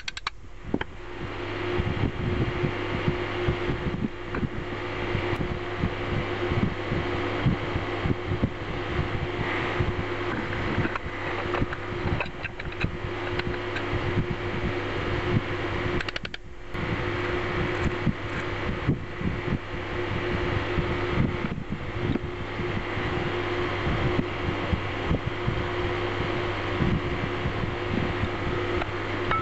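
A steady mechanical hum, like a running fan, under frequent small irregular clicks and knocks of cast-iron grinder parts being handled and fitted together by hand.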